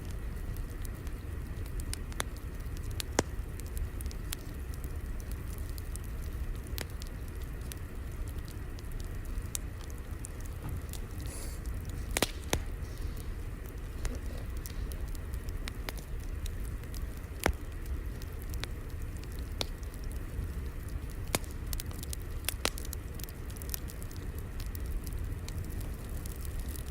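Fire crackling: a steady low rumble with irregular sharp pops and snaps.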